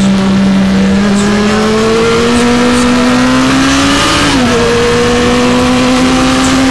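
Kawasaki ZX-9R's inline-four engine pulling hard under throttle, its pitch climbing slowly, then dropping sharply about four seconds in as it shifts up a gear and pulling on, with wind rushing past.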